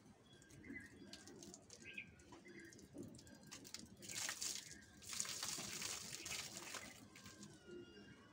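Water streaming and splattering onto the ground as soapy long hair is wrung out by hand, from about four to seven seconds in; before that only faint hand-on-wet-hair rubbing and short chirps.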